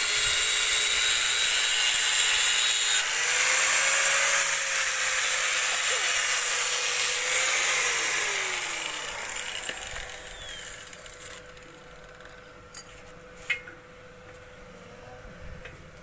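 Loud, steady steam hiss from a steam-heated mawa kettle setup, fading away over a few seconds around the middle. After it a faint steady hum remains, with two short clicks.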